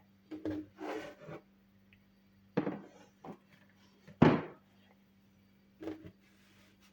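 A series of short handling sounds: a couple of rubs or scrapes, then several separate knocks, the loudest about four seconds in, over a faint steady hum.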